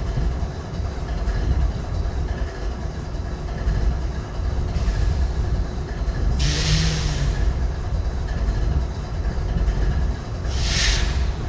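GE ES40DC diesel-electric locomotive idling with a steady low rumble. Short bursts of hiss cut in over it, once about halfway through and again near the end.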